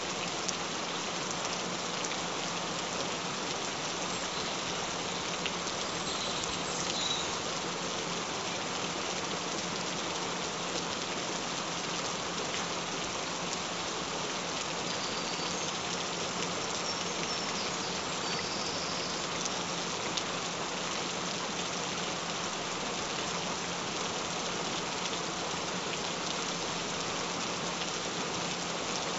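Steady rain falling, an even, unbroken hiss of drops, with a faint steady low tone underneath.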